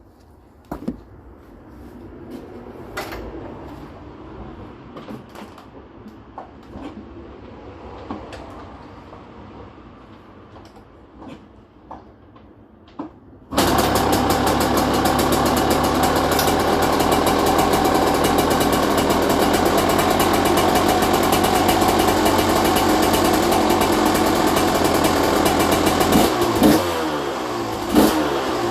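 2001 Yamaha YZ125 two-stroke single-cylinder engine on its first start after a rebuild. After several seconds of scattered clicks and knocks, it catches suddenly about halfway through and runs steadily and loudly, with the revs rising and falling a few times near the end.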